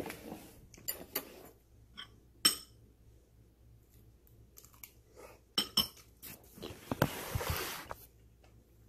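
Someone eating a meal: a utensil clinking against dishes several times, with chewing and lip-smacking. The loudest is a sharp clink about two and a half seconds in, and a hissing noise lasting about a second comes near the end.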